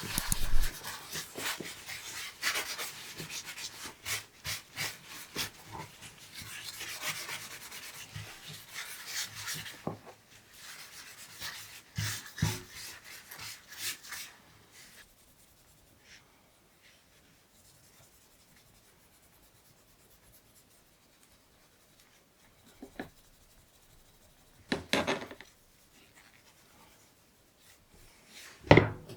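Rapid hand rubbing strokes on the knife for about ten seconds, thinning out over the next few, then a quiet stretch and a few short handling knocks near the end.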